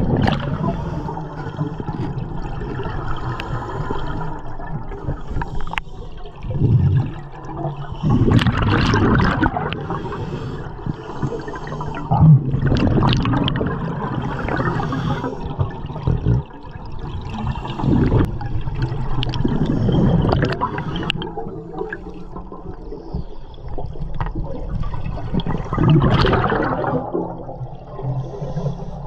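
A scuba diver breathing through a regulator underwater: a surge of rushing, gurgling exhaust bubbles every few seconds, with the steady hiss and rumble of water against an underwater camera housing in between.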